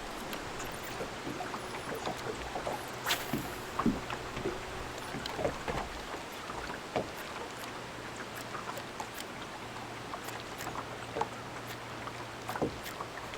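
Water lapping against a small boat's hull in the wind, with scattered small clicks and knocks throughout, the sharpest about three seconds in.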